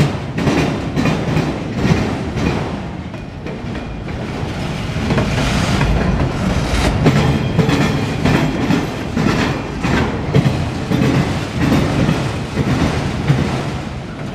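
Freight train of autorack cars rolling past, a steady rumble with repeated clacks of the wheels over the rails.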